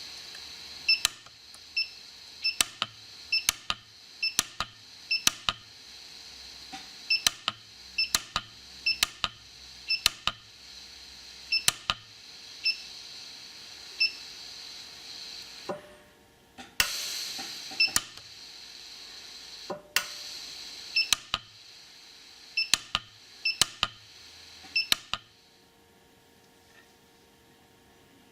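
Lampert PUK micro pulse arc welder firing single welding pulses on a gold bracelet, a string of sharp snaps about one or two a second, over a steady hiss of argon shielding gas. The hiss stops briefly a little past the middle and fades out near the end.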